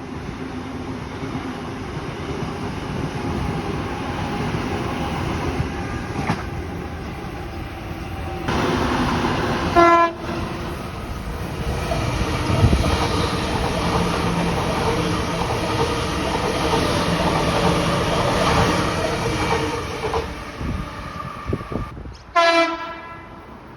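Sydney passenger train running on the rails, sounding two short horn blasts, one about ten seconds in and another near the end.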